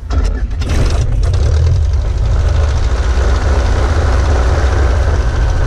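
Replica Sopwith Pup biplane's engine and propeller: a few uneven bursts in the first second, then running steadily and louder.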